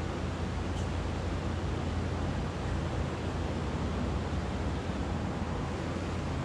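Steady drone of highway traffic, an even rushing rumble with no breaks.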